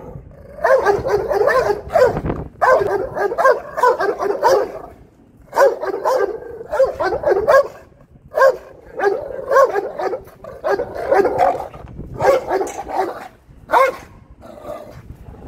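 Dogs barking at each other through a fence, in rapid bouts of several barks that come about every two seconds with short pauses between.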